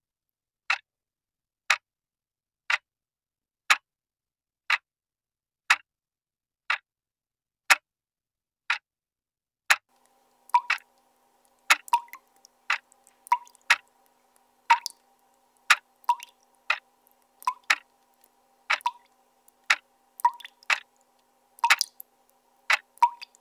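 Pendulum clock ticking steadily, about once a second. From about ten seconds in, water dripping from a tap joins it: irregular ringing plinks between the ticks, over a faint steady hum.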